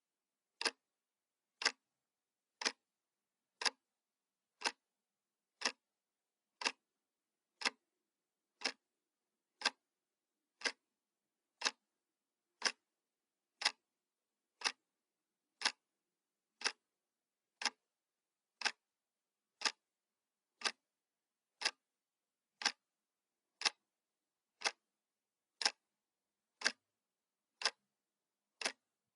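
Clock ticking sound effect: one sharp tick every second, evenly spaced, with silence between.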